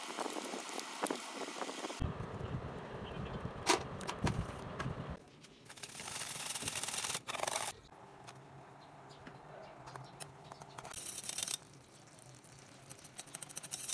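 Spatula scraping and stirring in a steel pot: gritty scraping through sugar and cocoa powder, then stirring the wet mixture, in several short cuts that change suddenly.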